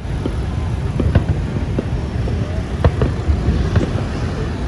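Fireworks popping, a few sharp scattered bangs over a steady low outdoor rumble.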